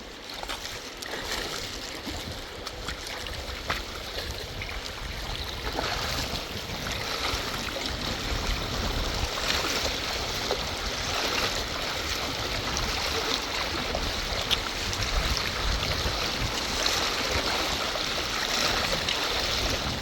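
Rushing water of a fast-flowing stream, a steady hiss that grows louder over the first several seconds, with a few small splashes and knocks.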